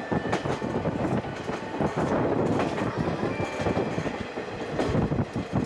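Old passenger coach of a steam-hauled train running along the track, heard from inside: a steady rumble of the wheels with irregular clacks and rattles.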